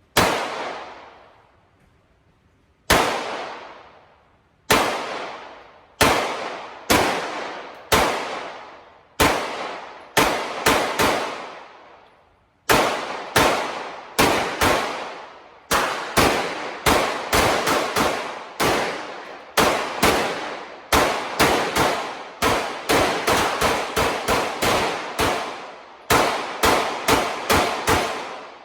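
Semi-automatic pistol firing a long string of about forty single shots, each followed by a brief echoing tail. The first shots are a second or more apart, and from about halfway in they come quickly, two or three a second.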